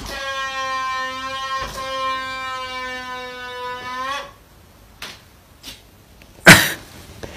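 Long red balloon flying loose as it deflates, the air rushing out of its neck making a steady pitched squeal for about four seconds that dips slightly before it cuts off. A couple of faint clicks follow, then a short, loud burst of noise near the end.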